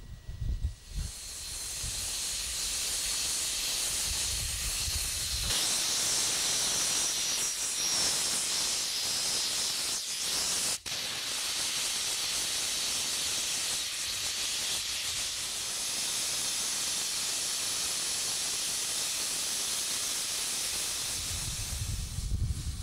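Steam tank locomotive OKMJ 14 letting off steam in a steady, loud hiss that carries on for about twenty seconds, broken by one sudden split-second gap near the middle.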